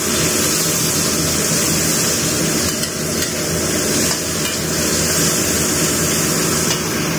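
Sliced mushrooms and garlic sizzling in a stainless steel wok, stirred with a spatula that scrapes and clinks against the pan now and then. A steady low hum runs underneath.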